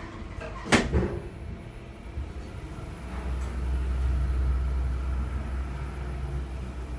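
Otis Gen2 elevator car setting off downward: a sharp knock about a second in, then a steady low rumble of the car travelling from about three seconds in.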